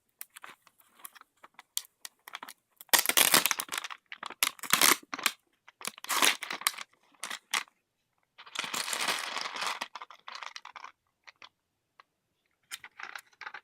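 Snack packet being torn open and crinkled by hand: several separate bursts of tearing and rustling, the longest about two-thirds of the way through, with small clicks and crackles between them.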